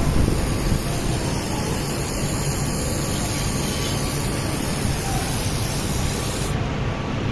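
2000 W fibre laser welding machine with wire feed working: a loud, steady hiss with a low rumble under it. The high, sharp part of the hiss stops abruptly about six and a half seconds in, while the lower noise carries on.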